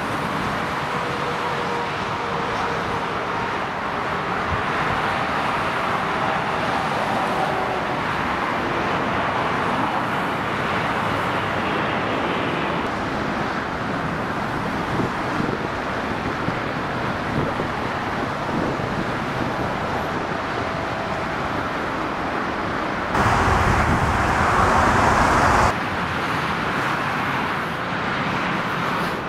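Four-engined Airbus A380 jet noise on approach and landing: a steady rushing engine noise with faint steady tones in the first half. Near the end there is a louder stretch of about three seconds that starts and stops abruptly.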